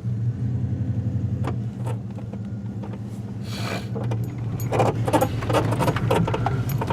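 Truck engine running at low speed, heard from inside the cab, with light rattling and clicking from loose things in the cab and a brief hiss about halfway through.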